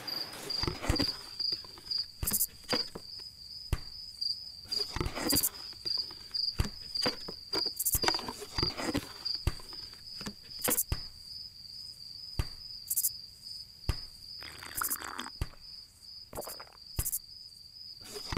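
A cricket chirping in a steady, fast-pulsing trill. Irregular sharp knocks and clicks sound over it and are the loudest sounds.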